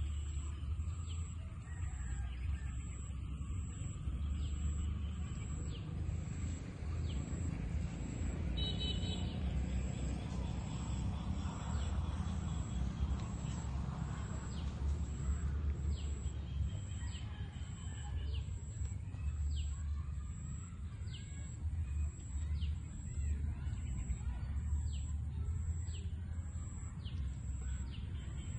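Outdoor ambience: a steady low rumble with birds chirping. There are short, high chirps every second or so, more of them in the second half, and a brief buzzy call about nine seconds in.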